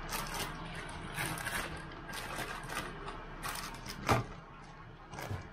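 Cornflour-thickened chilli sauce bubbling in a wok, with irregular crackles and pops as the bubbles burst. One sharp click about four seconds in is the loudest sound.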